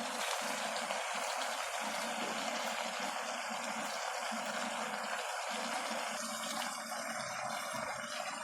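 Water running in a steady stream, like a tap left on.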